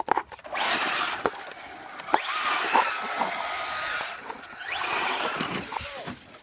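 Electric motor of a fast remote-control car, on an overpowered battery, whirring in three long bursts of throttle with a high whine running through them.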